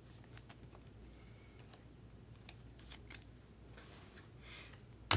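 Trading cards being handled and flipped through: faint scattered clicks and soft slides of card stock, with one sharper click at the very end.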